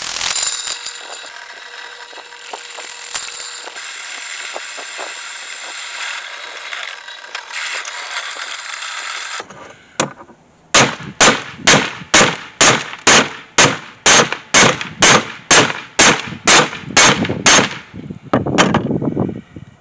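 A steady hissing rush that stops abruptly about halfway through, followed by a run of hammer blows on steel, about two a second and some fifteen in a row, each with a short ring: forging the knife blade.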